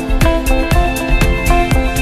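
Background music with a steady beat, about two strong beats a second under held instrumental notes.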